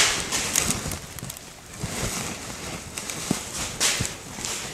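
Handling noise from coil springs and jute webbing being worked by hand from under the seat while a spring clip is fitted. A sharp click right at the start is followed by scattered light knocks and brief rustles.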